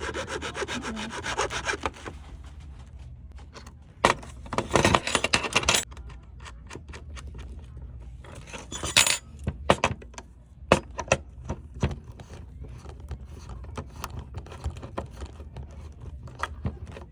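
A saw cutting a roller-skate part: about two seconds of rapid sawing strokes, then two more short bursts of sawing or rasping around four to six and nine seconds in, with scattered sharp taps and clicks in between.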